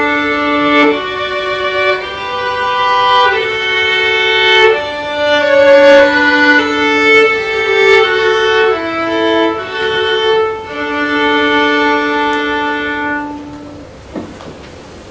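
Solo violin playing a melody of held bowed notes, one note at a time. The playing ends about two seconds before the end, leaving faint room noise with a few soft knocks.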